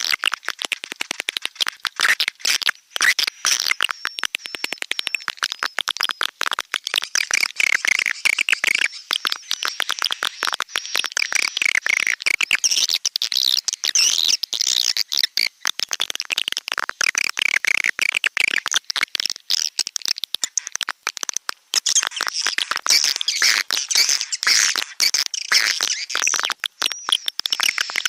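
Swiftlet calls, a dense, unbroken chorus of rapid high chirps and twitters: a recorded swiftlet lure sound of the kind played to draw swiftlets into a nesting house.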